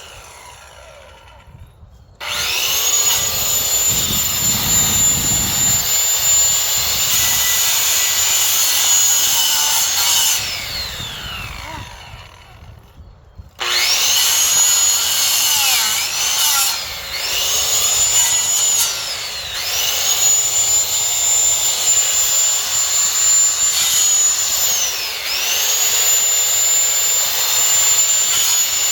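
Power saw cutting branches. A high whine starts suddenly about two seconds in and winds down in a falling glide just before the middle. It starts again suddenly and dips in pitch several times as the blade bites into the wood.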